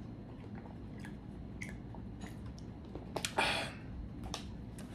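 Close-miked mouth sounds of a person drinking from a plastic bottle: small swallowing and lip clicks, then one short, louder noisy sound about three and a half seconds in.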